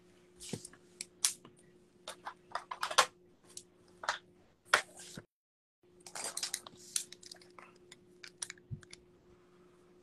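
Handling noise close to the phone's microphone: an irregular run of clicks, taps and rustles, with the sound cutting out briefly about five seconds in. A faint steady electrical hum runs underneath.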